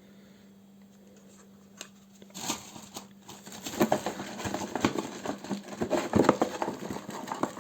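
Hair dryer packaging being handled as its nozzles are taken out: about two seconds in, quick rustling and small clicks of packaging and plastic parts begin and keep on to the end.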